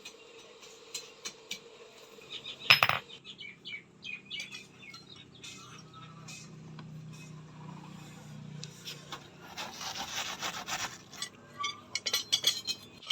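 Metal pieces clinking and scraping as they are handled, with one loud sharp knock about three seconds in.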